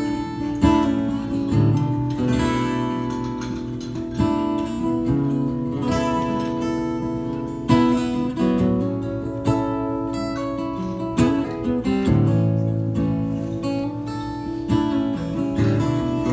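Instrumental intro of a live song, played by a band: acoustic guitar strumming chords over sustained low bass notes, with no singing yet.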